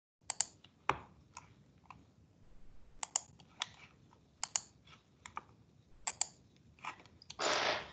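Scattered sharp clicks at a computer, some in quick pairs like double-clicks, as the slideshow is set up. A short rush of noise comes near the end.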